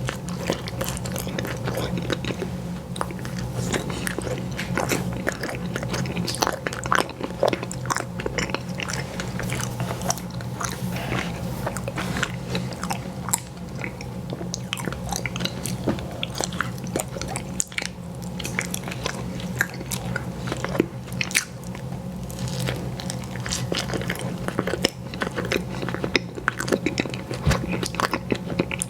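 Close-miked eating of ice cream sandwiches: continual biting and chewing, with many quick wet and crunchy clicks, over a steady low hum.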